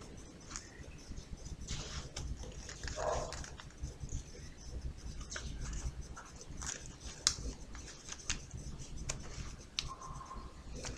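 Paper kaleidocycle being turned through its faces by hand: soft, irregular paper clicks and rustles as the folded tetrahedra flex at their hinges. An animal whines faintly, once about three seconds in and once near the end.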